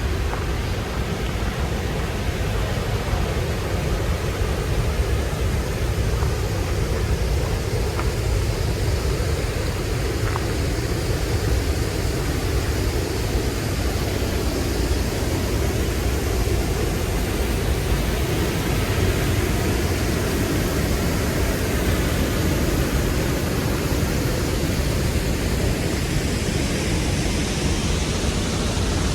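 Steady rush of fast-flowing creek water over rocks, an even hiss without breaks.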